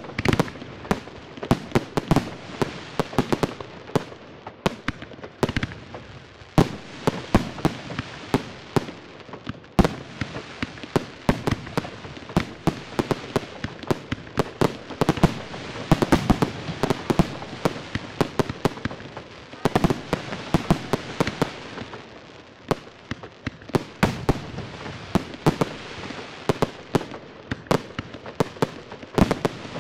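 Aerial fireworks display: shells launching and bursting in rapid succession, a dense run of sharp bangs, several a second, with louder clusters.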